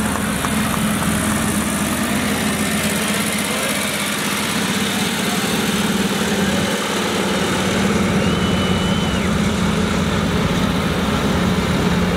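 Vintage Harley-Davidson V-twin motorcycle engines running steadily at low speed as the bikes ride slowly side by side.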